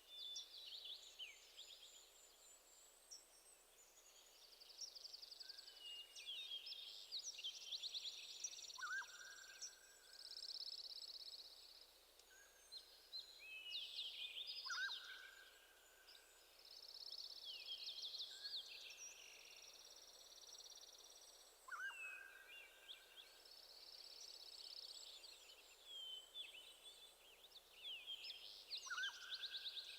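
Songbirds singing faintly: repeated bouts of high chirps and trills, with a lower whistled note every several seconds.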